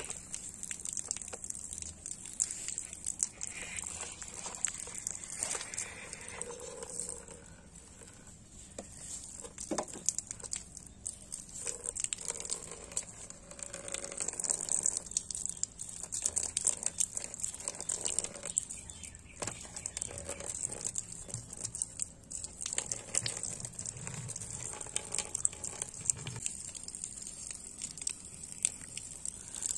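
Thin stream of water trickling and splattering onto a plastic toy tanker and wet ground, with scattered crackles and a steady high hiss.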